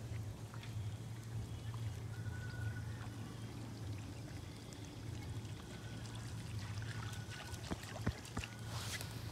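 Faint trickling water with a low steady hum underneath, and a few sharp light clicks about eight seconds in.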